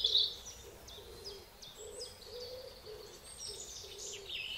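Forest birds chirping and trilling, busiest in the first half-second, over a low note repeating about twice a second.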